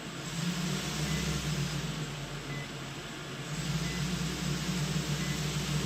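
A steady low hum and hiss with a faint short high beep repeating about every second and a half, from the powered-up Hubsan H501S drone electronics or its transmitter.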